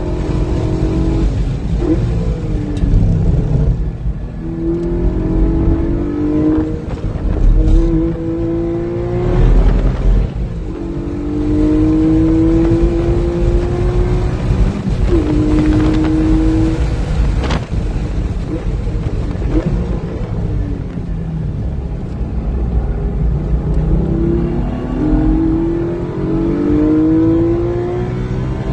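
Porsche GT4's flat-six engine driven hard on a racetrack. Its pitch climbs and drops sharply at each upshift, and falls in stretches as it slows into corners, over heavy wind and road noise.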